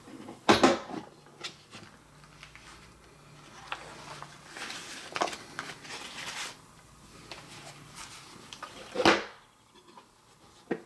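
Latches of a hard plastic gun case snapped open about half a second in, then rustling of paper and handling as the revolver is lifted out, and a loud knock of the plastic lid shutting just after nine seconds.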